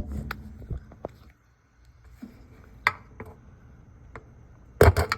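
Scattered plastic clicks and knocks as the lid switch of a GE top-load washer is pushed down at its tab and slid out of its mount, with a louder cluster of knocks near the end.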